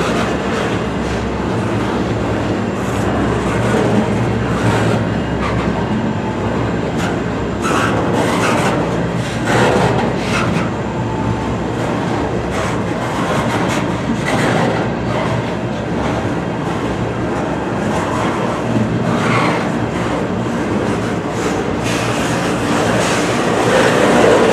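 Freight train cars rolling past: a steady, loud rumble of steel wheels on rail with irregular clacking and swells as wheels cross rail joints.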